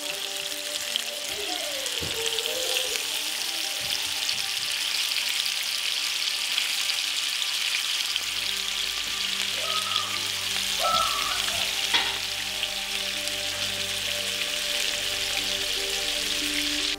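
Masala-coated fish steaks shallow-frying in hot oil in a nonstick pan: a steady sizzle with fine crackling spatters, and one sharp click about two-thirds of the way through.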